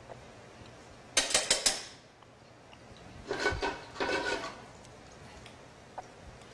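Metal tongs clinking against an aluminium stockpot. There is a quick run of sharp clinks about a second in, then two more clattering bursts with some metallic ringing around three to four and a half seconds in.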